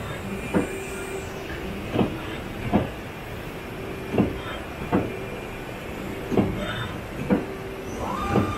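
CNC twin-spindle lathe running with a steady hum, its tool turret and slides clunking sharply about eight times as they index and move between tools. Near the end a motor whine rises and then holds steady.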